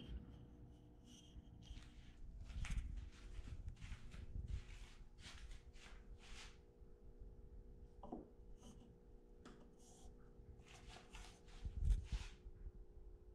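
Short scrapes, rubs and light knocks of wooden blocks being picked up, turned over and set against a plywood hull, with one louder thump near the end.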